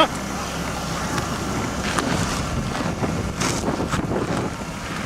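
Car stuck in snow and ice: engine running under load with its drive wheels spinning for grip, with wind buffeting the microphone.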